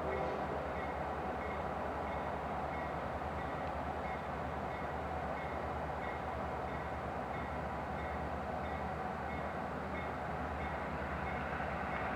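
Pair of CSX SD40-2 diesel locomotives (EMD 16-cylinder two-stroke engines) running steadily with a freight train; a horn blast cuts off just at the start. A faint repeating ding sounds over the engine rumble.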